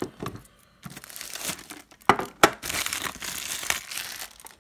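Clear plastic shrink wrap being peeled off a tin and crumpled in the hand: irregular crinkling, with a short pause early on and a couple of sharp crackles about two seconds in.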